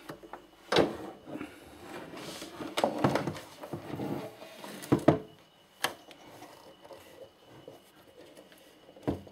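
Knocks and scuffs of a Gemini MX-03 DJ mixer being handled and turned round on a bench, its rubber feet dragging, with a few sharper knocks.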